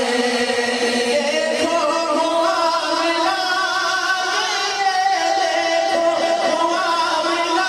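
Male voices singing a naat through microphones: a devotional song in praise of the Prophet, with long held, wavering notes and melodic ornaments and no pause.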